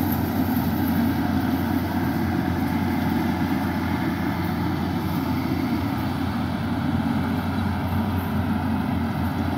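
Yanmar combine harvester's diesel engine and threshing machinery running steadily as it cuts ripe rice.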